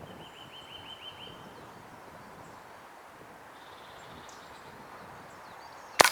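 Quiet outdoor ambience with a small bird's repeated chirping trills, heard twice. Near the end comes one sharp crack: a Walther Rotex RM8 .22 PCP air rifle firing.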